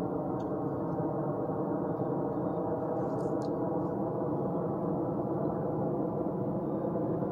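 A steady, sustained drone: one resonant tone with many evenly spaced overtones, held at an even level. A few faint clicks sound over it, about half a second in and again around three seconds in.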